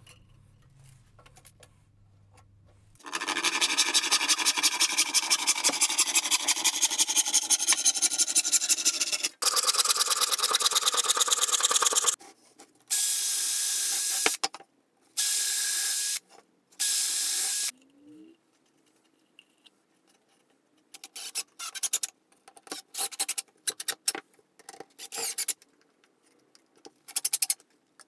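Cordless drill working pine boards. First comes a long, loud stretch of continuous cutting noise in the wood. The drill then runs three times briefly with a thin motor whine to bore holes. Near the end it drives screws in short, stuttering bursts.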